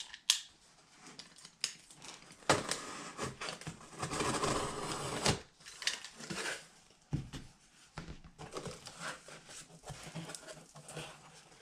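A utility knife slicing the clear packing tape along the top of a cardboard box, with a long rasping cut a few seconds in. The tape then peels away and the cardboard flaps scrape and rustle as they are pulled open, with a few sharp clicks and knocks of the knife and box.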